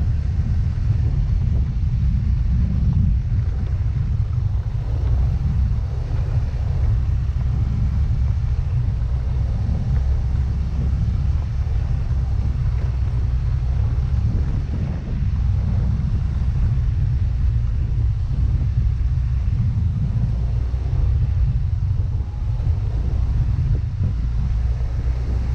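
Steady low rumble of a Yamaha Mio Gravis scooter on the move: wind buffeting the microphone over engine and road noise.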